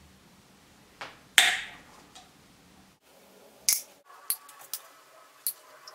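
Revolving hole punch pliers clicking and snapping as they are squeezed and worked to punch a guidance hole in latex sheet. There are a handful of irregular sharp clicks, the loudest about a second and a half in.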